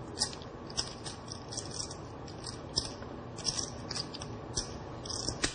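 Poker chips clicking together as a player handles a stack: short, sharp, irregular clicks, a few each second, with one slightly louder click near the end.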